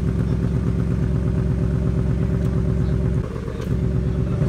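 2018 Ford Mustang GT's 5.0-litre V8 idling steadily through its quad-tip active exhaust in Track mode. The level dips slightly about three seconds in.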